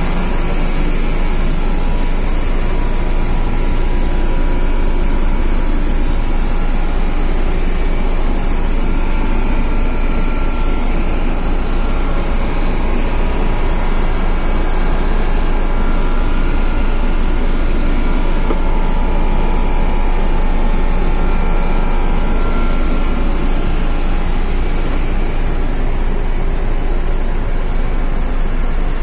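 Ship's air-conditioning plant machinery running, a loud, steady drone with a low hum and no let-up.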